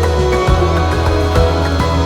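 Background music: held chords over a steady low bass with a light, regular beat.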